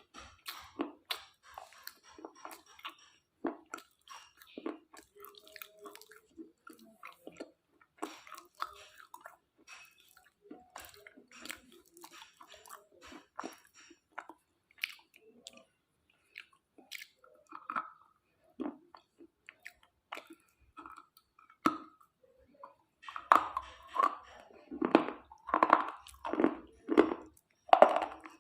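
Someone crunching and chewing coloured slate pieces close to the microphone: scattered sharp crunches and snaps, then louder, steadier rhythmic chewing near the end.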